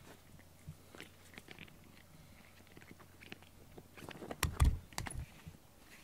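Cat biting and chewing on a pink rubber grooming brush: a run of small clicks and crunches, with a louder cluster of bumps about four and a half seconds in.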